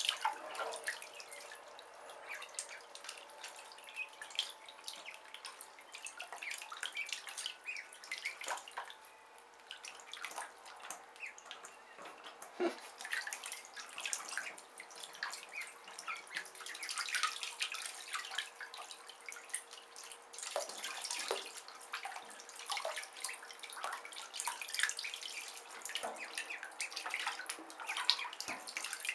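Khaki Campbell ducklings splashing and dabbling in shallow bathtub water: a steady patter of small, irregular splashes and drips.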